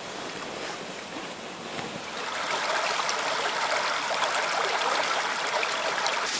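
Shallow forest stream babbling over stones: a steady rush of running water that grows a little louder about two seconds in.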